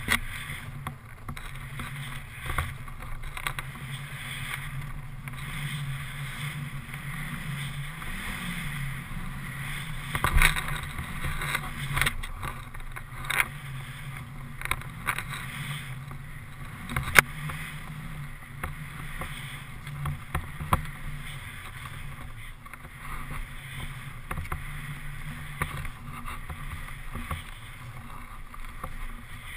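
Skis running through deep powder snow: a steady rushing hiss picked up by a pole-mounted camera, with a few sharp knocks, the loudest about ten and seventeen seconds in.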